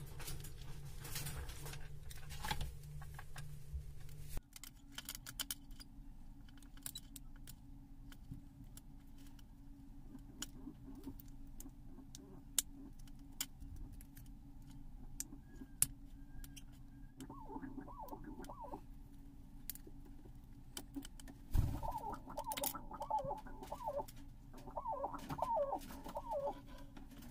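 Small plastic clicks and taps as hands work open the back cover of a Bluetooth neckband earphone, over a steady low hum. A bird calls in a short bout about two thirds of the way through, and again in a longer bout near the end, just after a single thump.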